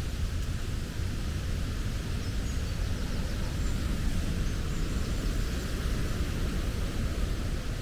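Steady rushing of flowing water with a deep rumble underneath, and a few faint high bird chirps.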